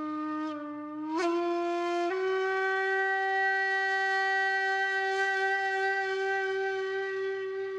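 A wind instrument plays one long note that bends upward twice in the first two seconds, then holds steady.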